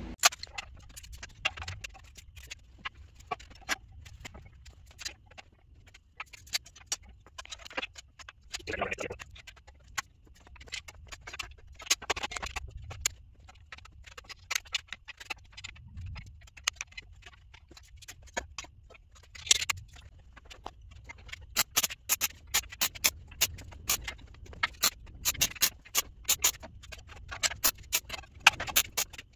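Sharp clicks and taps of steel tubing and clamps being handled and clamped on a steel welding table. A short scraping sound comes about nine seconds in, and the clicks come much more often in the last several seconds.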